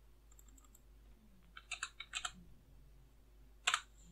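Computer keyboard keystrokes as coordinate values are typed in: a quick run of about five key presses just under two seconds in, then a single louder click near the end.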